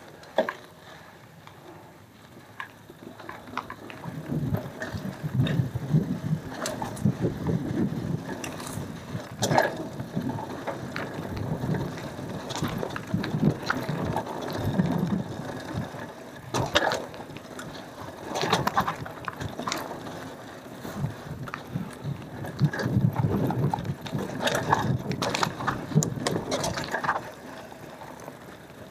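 Cube Analog hardtail mountain bike ridden over a dirt trail: a low, uneven rumble of tyres on dirt, broken by repeated clusters of sharp rattling clacks from the bike as it goes over bumps.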